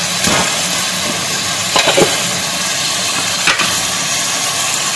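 Minced meat with onions and tomatoes frying in oil in a metal pot: a steady sizzle, with a few brief knocks of the wooden spatula against the pot near the start, around two seconds in, and again a little later.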